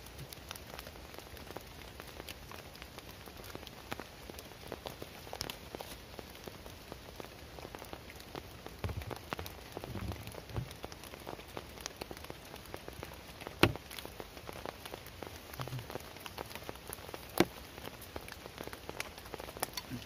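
Steady rain pattering on a tarp shelter, with many small drop ticks and two louder sharp clicks in the second half.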